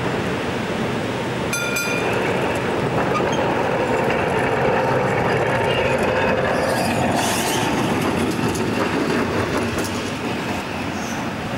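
Vintage electric tram rolling past on street track: the noise of its wheels and running gear grows as it comes alongside and eases as it moves away. A short ringing tone sounds near two seconds in.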